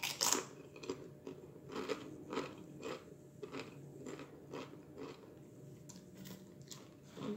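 Close-miked crunching of Doritos Flamin' Hot Nacho tortilla chips being bitten and chewed: a loud bite right at the start, then crunching chews about two a second.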